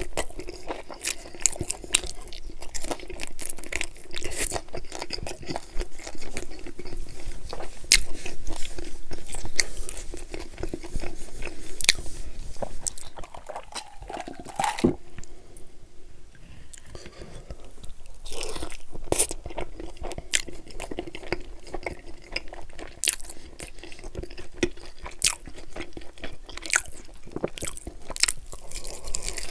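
Close-miked chewing and biting of chicken wings, with crunchy, crackling bites and wet mouth sounds, loudest about a third of the way in. About halfway through the chewing stops for a few seconds of drinking from a cup.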